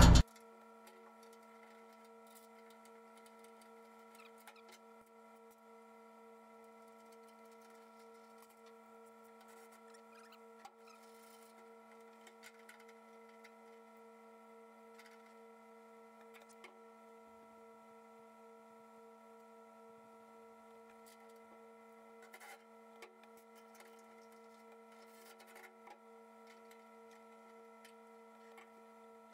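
Very faint, steady hum made of several tones, with a few faint scattered clicks.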